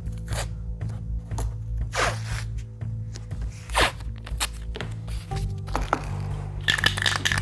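Masking tape being pulled off the roll and torn in quick rips, over background music.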